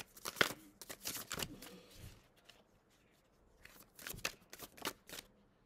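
A deck of tarot cards being shuffled and handled in the hands: two flurries of quick, crisp card slaps and flicks, the first in the opening second and a half and the second around four seconds in, with a short lull between.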